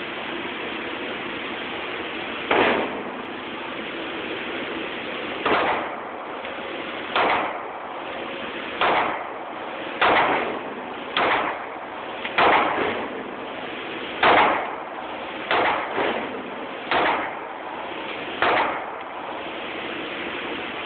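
A gun fired shot by shot at a deliberate pace, about eleven sharp shots each one to three seconds apart, over a steady background hiss.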